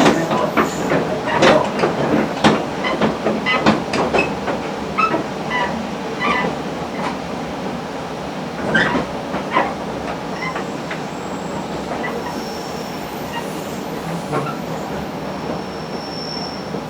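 Akita Nairiku Railway AN-8800 diesel railcar running, heard from inside the cab. Irregular knocks and rattles come through for about the first ten seconds, then settle into a steadier running noise.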